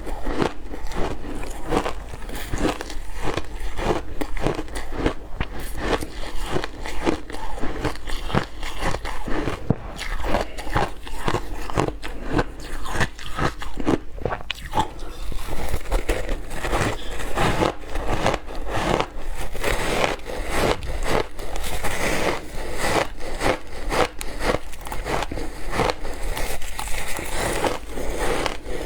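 Ice being bitten and crunched between the teeth close to the microphone, a rapid, irregular run of sharp crunches and cracks with chewing.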